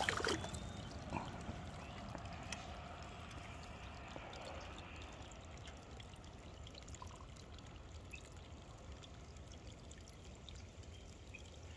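A released rock bass splashing into the shallow creek water right at the start, then a faint, steady trickle of creek water with a few small ticks.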